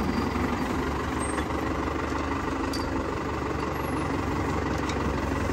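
Tractor engine idling steadily, a low even hum.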